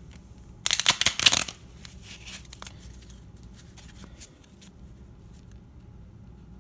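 A deck of playing cards being riffle-shuffled: a quick burst of rapid flicks about a second in, then softer scattered card clicks over the next few seconds.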